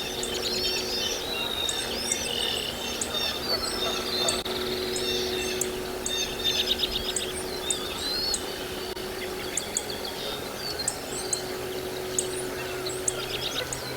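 Several birds chirping and trilling at once, short high calls overlapping throughout, over a faint steady low hum.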